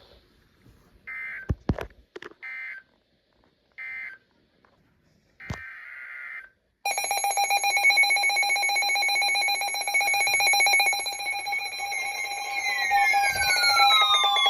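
Emergency Alert System digital data bursts: three short, harsh screeching bursts about a second and a half apart, then a longer burst. About seven seconds in, a loud electronic alert tone starts, with several steady pitches held together, and pitch sweeps falling through it near the end.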